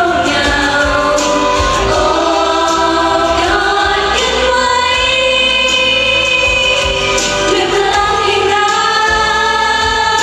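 Female pop vocals sung into a handheld microphone over a full backing track, played loud through a stage PA.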